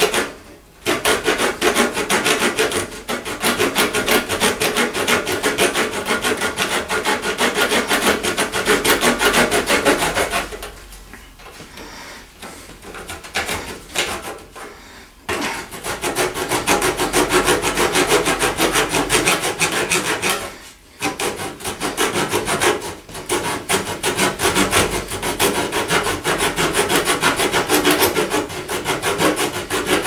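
Leatherman Blast multi-tool's folding saw blade cutting through a small block of scrap wood in steady back-and-forth strokes. The sawing drops away for about five seconds around ten seconds in, and pauses briefly again about twenty-one seconds in.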